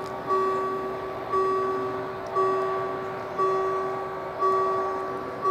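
Level crossing warning bell ringing about once a second, each stroke a two-tone ring that fades before the next. It warns of an approaching train while the barriers come down.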